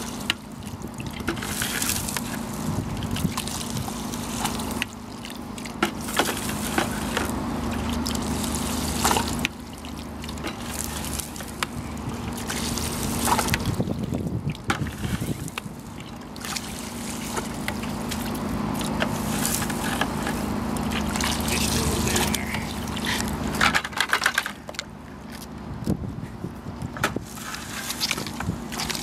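Homemade PVC hand dredge working muddy water and sand: water splashing as the dredge's load is pushed out into a plastic gold pan, and the tube sucking and stirring in a bucket of water, with many small clicks and splashes.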